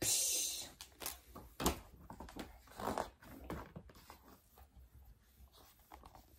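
A breathy, snore-like exhale imitating a sleeping bear's snoring, followed by soft irregular rustling and clicking that fades away.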